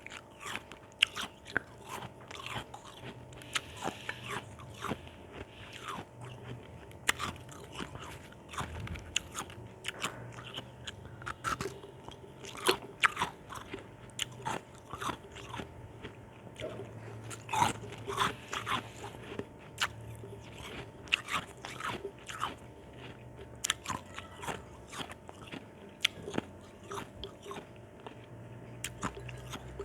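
Ice chunks with orange juice being bitten and chewed: irregular sharp crunches and cracks, a few each second.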